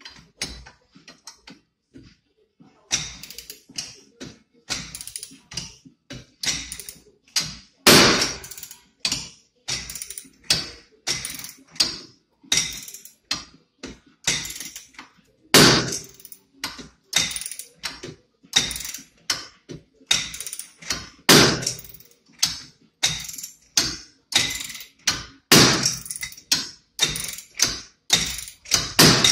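Repeated metal-on-metal blows of a slide hammer on a jaw puller clamped to a car's rear wheel hub, driving the hub out of the wheel bearing. The blows come about one and a half a second, starting about three seconds in, some much harder than others.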